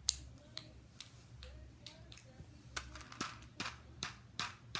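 Sharp, irregular clicks and taps from a small green toy being handled and fiddled with close to the microphone, ASMR-style. The loudest click comes right at the start, and they come faster in the second half.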